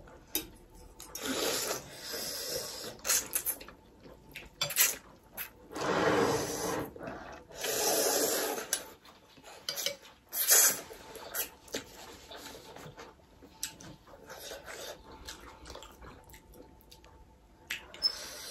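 Chicken thukpa noodle soup being slurped in a series of noisy pulls, each up to about a second long, with forks and spoons clicking against glass bowls.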